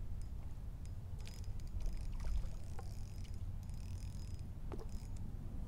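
A hooked bluegill splashing at the water's surface as it is reeled in, in several short splashes, over a low, steady rumble.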